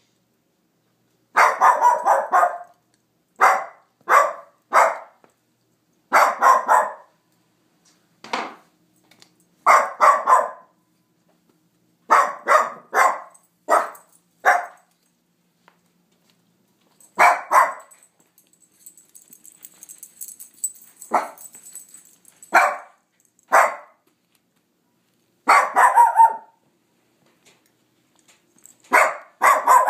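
Small dog barking in short bursts of two to four sharp barks, with pauses of a second or two between bursts. A faint hiss comes in briefly about twenty seconds in.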